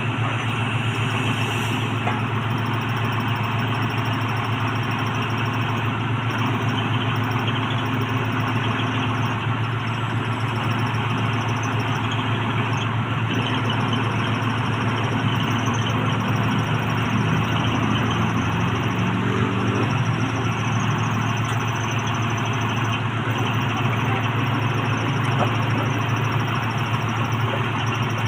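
Horizontal directional drilling rig's engine running steadily, a constant low drone with no breaks.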